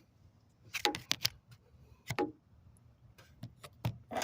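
A handful of short, irregular clicks and knocks: handling noise from the recording phone as it is being set down and propped in place.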